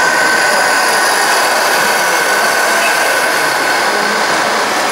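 Radio-controlled scale semi truck driving with a long pipe load: a steady mechanical whine with one constant high tone over an even rolling noise.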